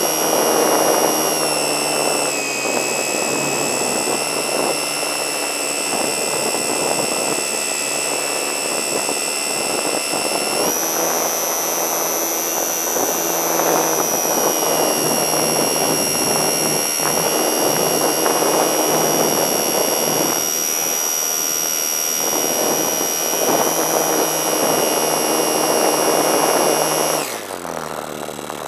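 Electric motor and propeller of a HobbyZone Super Cub RC plane heard from on board: a steady high whine over rushing air. The pitch steps up about ten seconds in, and near the end the whine falls and quietens as the power comes off.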